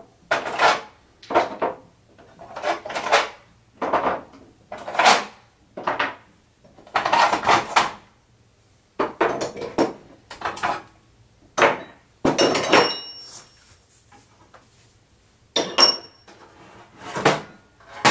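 Chrome vanadium sockets and a ratchet being taken out of a metal case and set down one after another on a wooden workbench: a string of clacks and metal clinks, a few of them ringing briefly.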